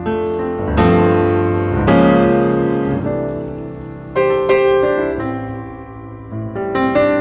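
Slow background piano music: chords struck a second or more apart, each left to ring and fade.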